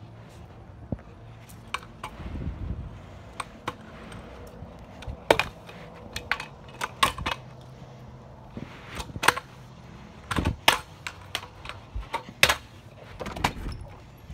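Kick scooter clattering on a concrete sidewalk: irregular sharp clacks and knocks, with a low rumble about two seconds in.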